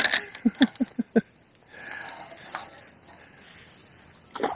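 Hooked barbel splashing at the surface as it is played in on feeder gear: a sharp splash at the start and another near the end. A quick run of about five short, low voice sounds from the angler follows the first splash.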